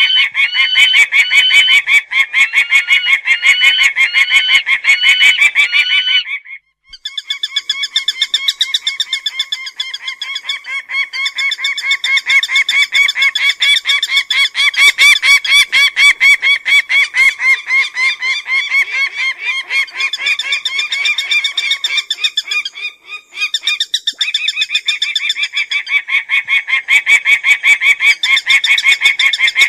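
Peregrine falcon calling: a loud, rapid, unbroken run of repeated high notes, briefly cut off about six seconds in and again about twenty-three seconds in.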